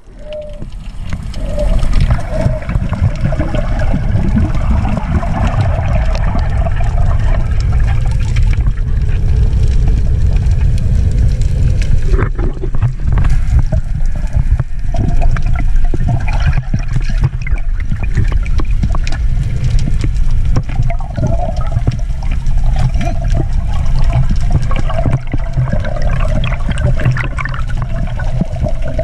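Underwater sound picked up by an action camera: a loud, steady, muffled rumble and rush of moving water with bubbly gurgles, fading up over the first second or two.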